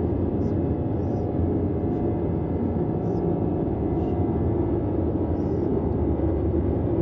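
Steady red noise: an even, deep hiss weighted toward the low end, with a few faint short ticks up high.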